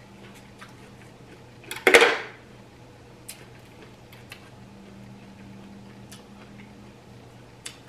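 Knife and firm Saturn peach being handled on a kitchen counter: one loud, sharp clack about two seconds in, then a few faint clicks, over a faint steady hum.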